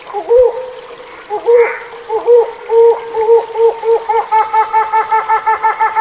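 Hornbill calling: short, pitched notes that come singly at first and, from about four seconds in, run together into a fast, even series of about four notes a second.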